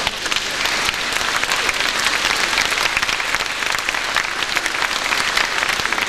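Audience applauding steadily, many hands clapping at once.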